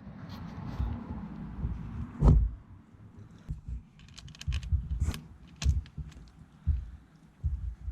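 Scattered light clicks and knocks of small metal fittings and hand tools being handled, with low bumps between them; the loudest knock comes about two seconds in.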